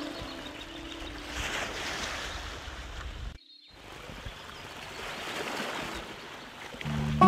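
Steady rushing noise of ocean surf, briefly cut off about three and a half seconds in. Soft instrumental music with plucked notes fades at the start and comes back just before the end.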